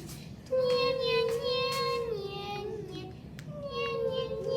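A child singing long, high held notes that step downward in pitch, in three phrases, with a few light clicks among them.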